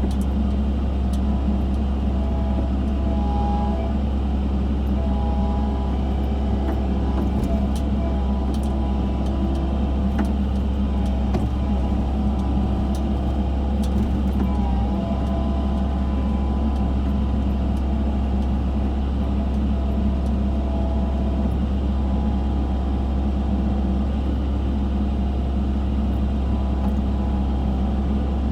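Excavator's diesel engine running steadily while digging, with a few light clicks and knocks in the middle stretch.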